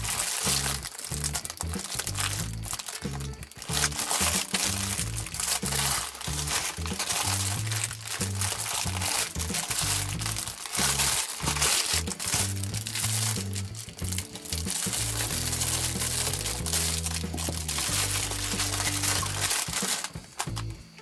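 Clear plastic wrapping crinkling and rustling as it is pulled and peeled off a patent-leather shoulder bag, over background music with a bass line.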